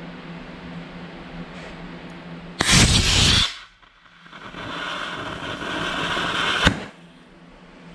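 Small rocket motor strapped to a toy robot firing: a loud rushing whoosh about two and a half seconds in that lasts under a second. A gap follows, then a quieter hiss for about two and a half seconds that ends in a sharp pop.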